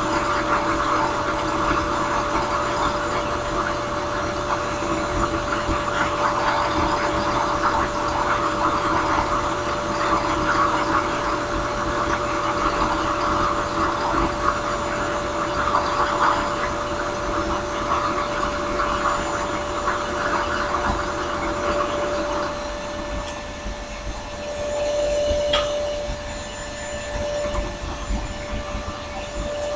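Drill press spinning a small sanding drum while a briar pipe bowl is pressed against it and sanded: a steady motor tone under a rasping sanding noise. About 22 seconds in the sanding stops and the motor runs on alone, with a single tick a few seconds later.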